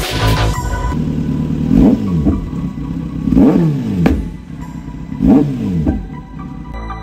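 Kawasaki Z900's inline-four engine idling in neutral and blipped three times, each rev rising and dropping quickly back to idle.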